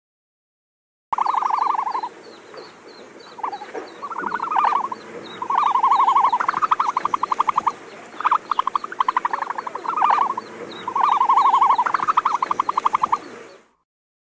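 Repeated rapid pulsed trilling calls, each run about a second long, coming several times over with short gaps, over an outdoor background with small birds chirping faintly. The audio starts after a second of silence and cuts off shortly before the end.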